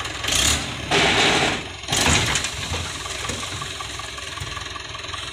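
Mahindra 275 DI tractor's three-cylinder diesel engine running steadily while its hydraulics raise the tipping trailer. Three loud rushing bursts of noise sound over it in the first two and a half seconds.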